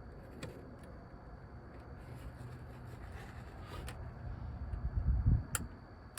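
Plastic interior trim being handled and pried at: faint clicks and rubbing, a few dull knocks near the end, then one sharp click of a clip or tab.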